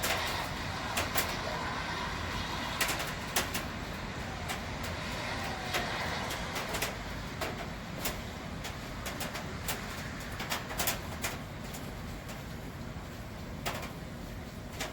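Steady street background of traffic and rain, broken by scattered sharp taps like raindrops hitting close to the microphone.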